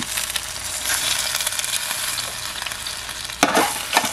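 Chicken leg quarters sizzling in the hot pan of an electric roaster oven, a steady crackling hiss. Near the end come a few sharp clicks as metal tongs take hold of the chicken.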